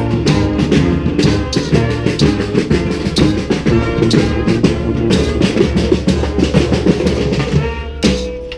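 Street brass band playing a driving tune, horns over bass drum and snare, with a short break near the end.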